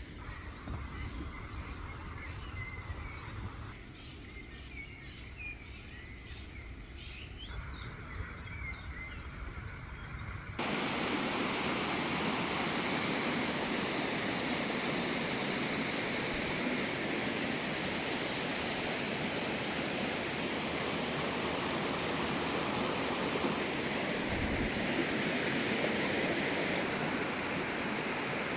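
Faint chirping over a low rumble, then after a sudden cut about ten seconds in, the loud steady rush of stream water flowing over rocks.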